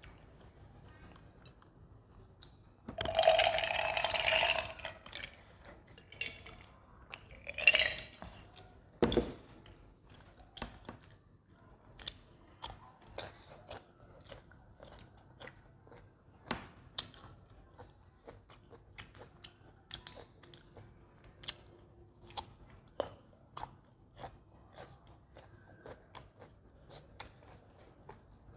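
Close-miked chewing and biting of doughnuts and mango slices. A loud crunching burst comes about three seconds in and lasts over a second, with a shorter one near eight seconds. After that come soft mouth clicks and smacks about once or twice a second.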